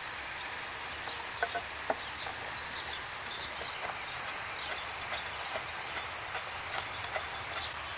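Chef's knife chopping fresh parsley on a wooden cutting board: faint, light knocks of the blade on the board over a steady outdoor background hiss.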